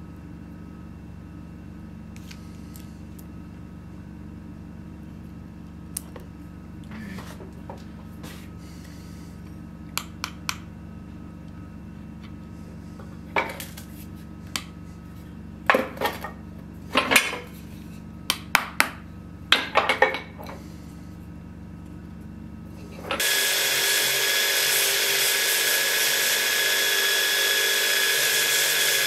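Steady low workshop hum with scattered sharp knocks and clicks of hands and small metal parts on an anvil, busiest in the middle, then suddenly a belt grinder running loud and steady as the knife's wooden handle is pressed against its contact wheel.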